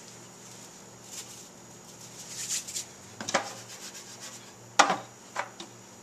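Hands brushing and rubbing over a metal sheet pan, then the sheet pan being shifted and knocking against the countertop three times, the loudest knock near the end.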